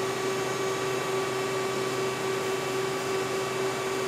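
Steady machine-shop background hum and hiss, with one clear mid-pitched tone and a fainter higher tone running through it.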